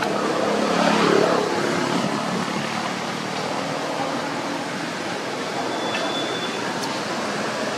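Steady rushing background noise, loudest about a second in, with no clear monkey calls.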